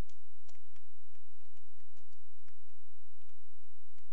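Computer keyboard being typed on, a run of irregularly spaced key clicks, over a steady low hum.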